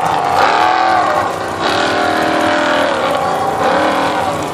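Formula Offroad buggy's engine revving hard under load as it climbs a steep sand slope, its pitch rising and falling several times.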